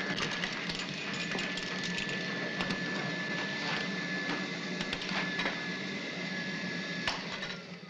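Small 1950s vacuum cleaner running, a motor hum with a steady high whine and scattered clicks and rattles as it picks up dirt from the floor; it is switched off about seven seconds in and winds down.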